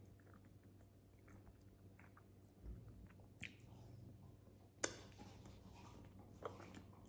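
Faint mouth sounds of someone chewing a boiled egg, with a few small clicks and one sharper click about five seconds in.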